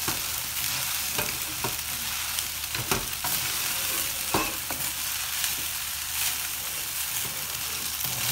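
Fried rice sizzling in a nonstick wok while a spatula stirs and tosses it. A steady hiss runs underneath, with scattered scrapes and taps of the spatula against the pan.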